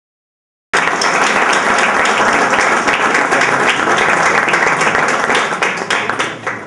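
Audience applauding, a dense patter of many hands clapping that cuts in abruptly within the first second and dies down near the end.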